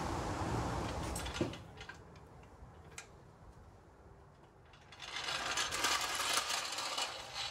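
Floor jack being handled and rolled out from under a car across a concrete driveway: a click, then near quiet, then about two seconds of rattling as its steel wheels roll, starting about five seconds in.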